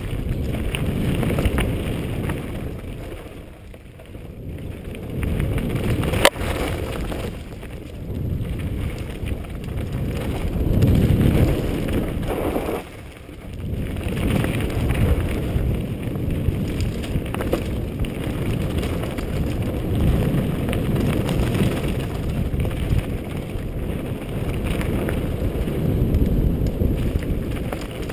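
Wind buffeting a helmet-mounted camera's microphone while a mountain bike rolls fast down a dirt singletrack, its tyres rumbling over the ground. The noise swells and dips with speed, and there is a single sharp knock about six seconds in.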